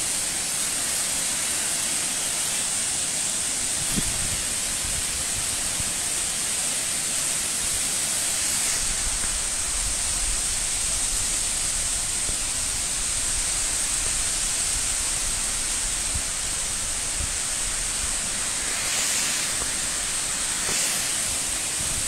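Tall waterfall streams plunging into a rock gorge: a steady rushing hiss of falling water, with a thin high hiss held on top of it.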